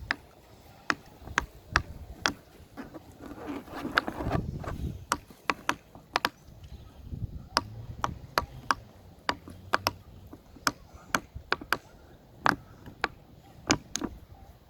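A silicone pop-it fidget toy having its bubbles pressed one after another: short, sharp clicks at irregular spacing, about two a second.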